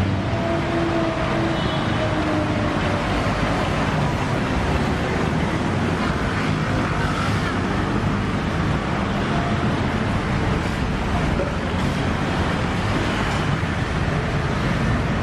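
Steady road traffic noise from passing vehicles, a continuous rumble of engines and tyres.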